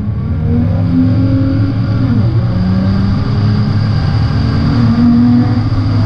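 Nissan GT-R R35's twin-turbo V6 at full throttle, heard from inside the cabin, pulling hard with an upshift about two seconds in, after which the engine note climbs again.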